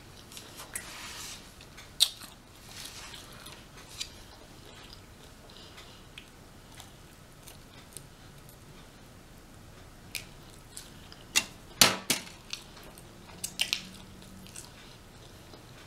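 Close-up chewing of rotisserie chicken, with scattered short wet clicks and smacks; the loudest is a cluster of sharp clacks about twelve seconds in.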